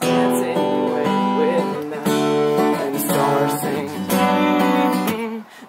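Acoustic guitar strummed in an instrumental passage of a slow love song, chords ringing and restruck about every two seconds, with a short break near the end.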